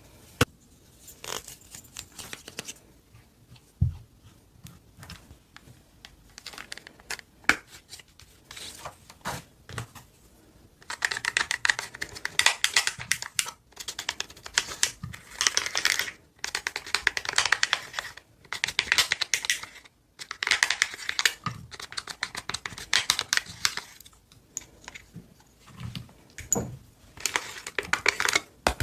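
Slime being handled, poked and squeezed: dense crackling clicks and small pops, sparse at first and then coming in loud bouts of a few seconds each with short pauses between them.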